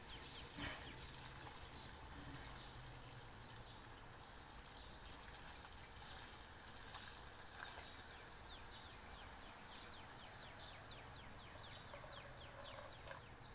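Faint trickle of gasoline being poured from a can into a Predator 3500 inverter generator's fuel tank.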